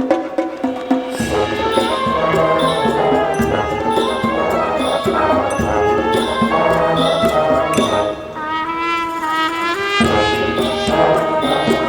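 Marching band playing, with brass chords over a steady percussion beat. About eight seconds in, the low brass and drums drop out, leaving a lighter, higher melodic line, and the full band comes back in about two seconds later.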